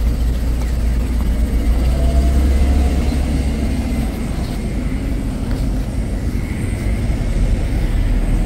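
Steady low rumble of road traffic, strongest in the deep bass, without distinct events.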